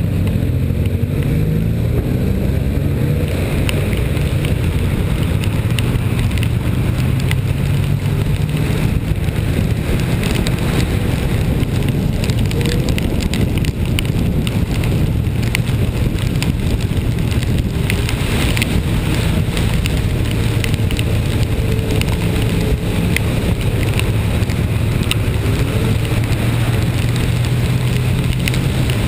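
Vehicle engine running steadily while driving, its pitch drifting a little up and down, with wet road noise, wind and small ticks of rain throughout.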